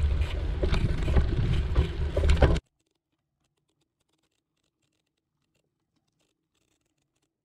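Wind buffeting the bike-mounted camera's microphone, with the rattling and clicking of a bicycle riding over a rough dirt path. About two and a half seconds in, it all cuts off abruptly to near silence.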